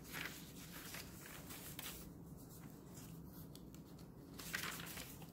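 Faint rustling and handling of paper as the pages and a tucked-in paper insert of a handmade junk journal are turned and lifted, with a louder rustle about four and a half seconds in.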